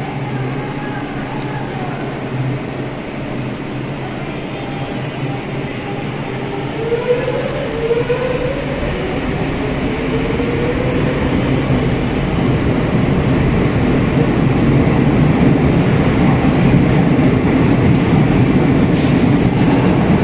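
Metro train pulling out of an underground station: a steady hum while it stands, then a whine rising in pitch from about seven seconds in as it starts moving, and a rumble of wheels on rails that grows louder as the carriages pass.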